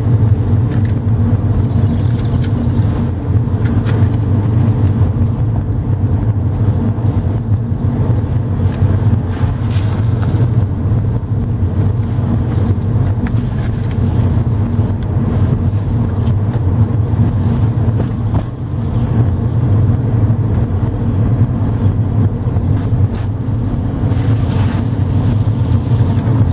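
VW CrossPolo diesel with 7-speed DSG gearbox heard from inside the cabin while driving: a steady low hum of engine and tyres.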